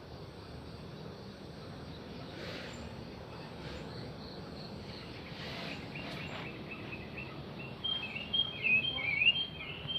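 A prenjak (prinia) singing: faint high chirps from about six seconds in, then a louder, rapid run of chirps in the last two seconds, over a steady outdoor hiss.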